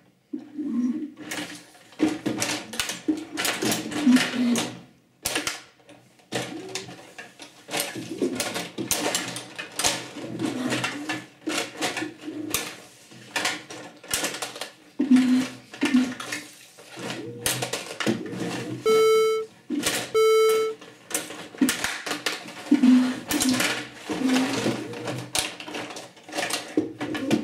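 Rod table hockey being played: the plastic puck and player figures clattering and knocking on the rink as the rods are slid and spun, with the robot's electric motors whirring in short spurts. Two short electronic beeps sound about two-thirds of the way through.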